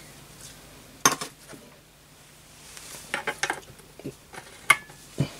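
Steel hammer of a Setra pump-up air rifle being handled and fitted into the rifle's receiver tube: a few scattered metallic clicks and clinks. One sharp click near the end rings briefly.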